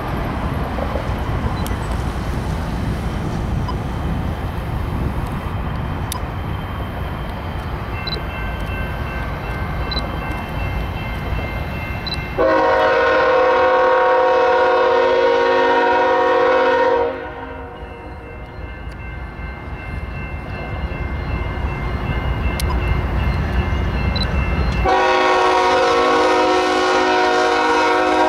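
BNSF diesel freight locomotive's air horn: a loud, long chord blast of about four seconds roughly midway through, and another long blast starting near the end, over a low rumble. A fainter horn tone can be heard a few seconds before the first loud blast.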